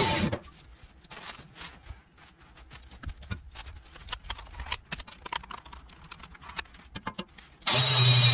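Faint, irregular light clicks and taps of a wire cup brush and angle grinder being handled against a rusty cast iron Dutch oven lid, with the grinder not running. Electronic background music cuts off just after the start and comes back near the end.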